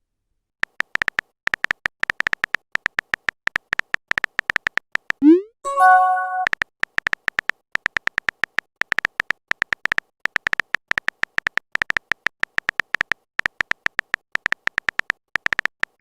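Chat-app sound effects: rapid clicking of phone-keyboard taps in long bursts, with a short rising pop and a brief chime for a message about a third of the way in.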